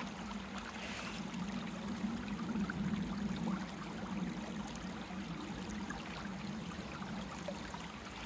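Shallow river running steadily over rocks, a little louder for a moment a few seconds in.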